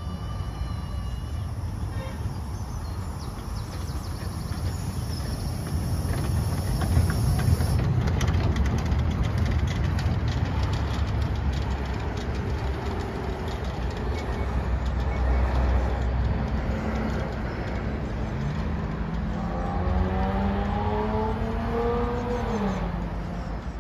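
The 1890 Cockerill steam tram locomotive runs past on tram rails and draws away, with steady rumbling and clicking that is loudest about a third of the way in. Near the end a motor note rises in pitch and then falls away.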